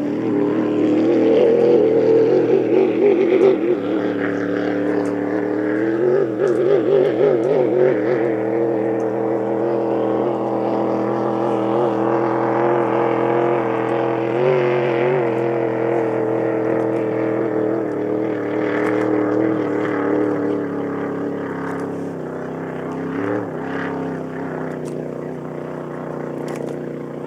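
6-litre racing hydroplane's engine running hard at speed, its pitch wavering now and then and slowly fading toward the end.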